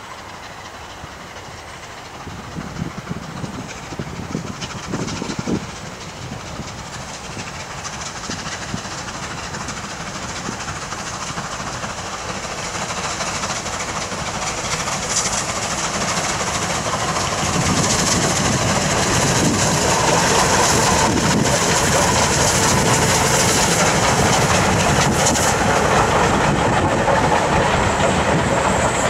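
Double-headed steam train, led by rebuilt Bulleid West Country Pacific No. 34046 'Braunton', working hard as it approaches and passes. The exhaust grows steadily louder and is loudest from just past the middle onward. Wheels clatter over the rail joints as the coaches go by.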